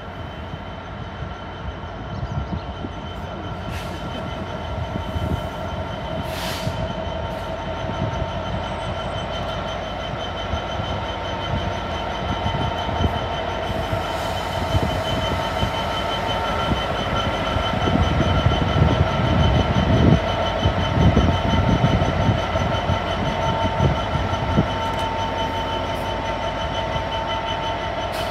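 Class 66 diesel locomotive's two-stroke V12 engine running as it passes, a low rumble that grows louder and peaks about two-thirds of the way through, with a steady high whine held over it.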